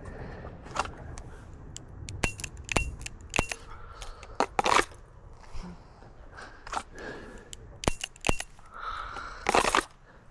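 Sharp metallic clicks and clinks of a revolver and its cartridges being handled, several with a brief ringing ping, scattered irregularly. There are two louder rushes of noise, about four and a half and nine and a half seconds in.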